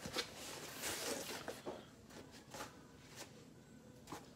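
Faint rustling and scraping of a small cardboard shipping box being handled and its flaps pulled open, with scattered light clicks and taps. The handling noise is busiest in the first couple of seconds and quieter after.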